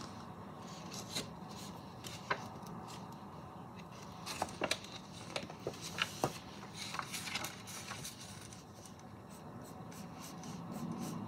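Sketchpad paper being handled and rubbed, with pencil strokes scratching on the paper. Short scratchy sounds come and go, most of them about the middle.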